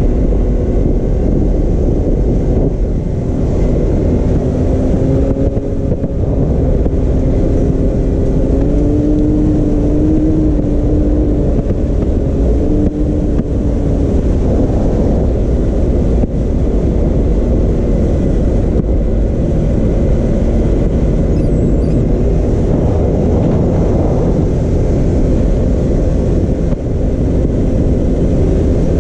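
Can-Am Maverick X3 Turbo RR side-by-side's turbocharged three-cylinder engine running under way, its pitch rising and falling as the speed changes, over a steady low rumble.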